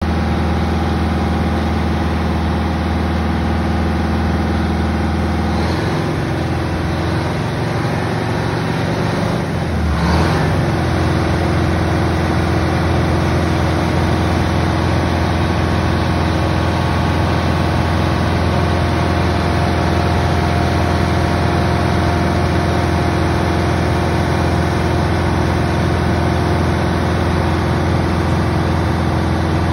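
Ingersoll Rand TH60 drill rig's engine running steadily; its note shifts about six seconds in and again about ten seconds in, a little louder after, then holds steady.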